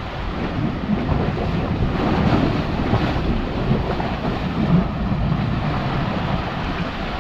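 Ocean surf rushing in and splashing against shoreline rocks, with wind buffeting the microphone.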